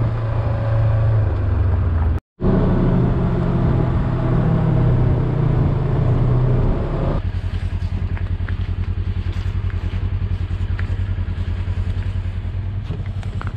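Side-by-side UTV engine running as the machine drives across lake ice, with a brief break about two seconds in. About seven seconds in it drops to a quieter, evenly pulsing run.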